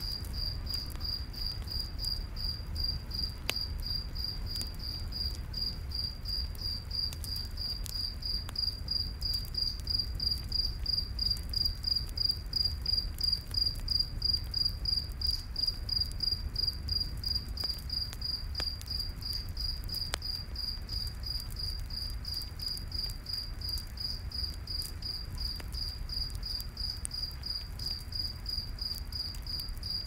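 Crickets chirping in a steady, even rhythm of about two high chirps a second, over a low rumble, with a few faint pops from a campfire.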